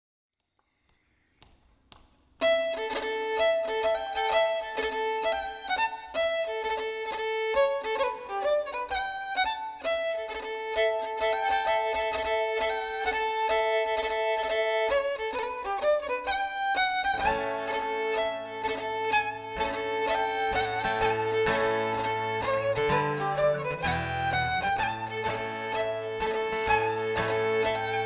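Uilleann pipes, fiddle and guitar playing a traditional Scottish strathspey. The music starts suddenly a couple of seconds in, and a steady low bass part joins a little past halfway.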